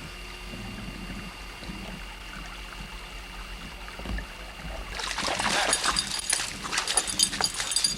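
Dry brush and weeds rustling and crackling as someone pushes through cover. It starts about five seconds in, after a stretch of faint steady hum.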